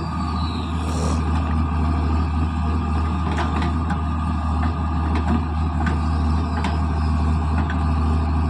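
Heavy diesel engine of a backhoe loader working site running steadily, with scattered sharp clicks and knocks and a brief hiss about a second in.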